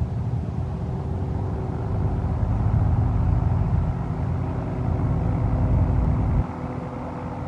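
Cessna 208B Caravan's single turboprop engine running at taxi power: a steady drone over a low rumble, with a few held tones, easing slightly near the end.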